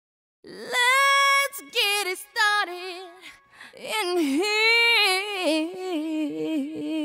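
Recorded song starting with an unaccompanied singing voice: long sung notes that slide and waver in pitch, with no beat under them. It begins about half a second in after silence.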